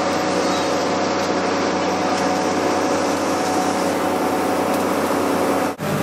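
Sightseeing boat's engine running, a steady drone with several constant hum tones, briefly cut off near the end.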